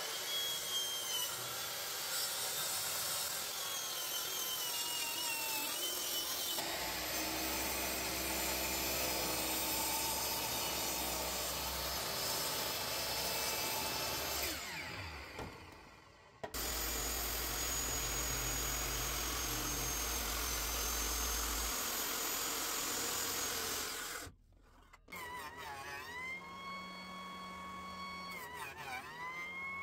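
Power saws cutting hardwood boards: a plunge-cut circular track saw running along its guide rail, then a sliding miter saw. Near the end a small benchtop jointer runs with a steady hum that briefly dips in pitch and recovers as a board is pushed across its cutterhead.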